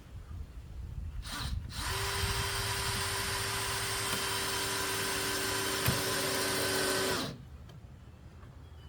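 Power drill running: a brief squeeze of the trigger about a second in, then a steady run at one pitch for about five seconds that stops suddenly, as when driving a screw or boring into wood.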